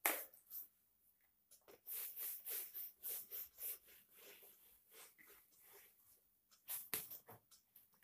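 Handheld whiteboard eraser rubbed back and forth across the board in quick repeated strokes, a soft scratchy swishing. The strokes fade in the middle and grow louder again near the end.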